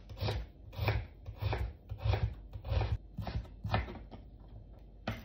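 Kitchen knife dicing an onion on a wooden cutting board: the blade knocks the board in a steady rhythm, about one stroke every half second, the strokes thinning out in the last second or so with one sharp knock near the end.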